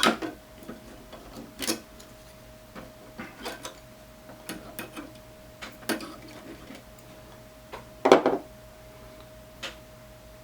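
Scattered small clicks and knocks of wires and hand tools being handled while pulling wires off a circuit board, the loudest knock about eight seconds in. A faint steady tone sits underneath.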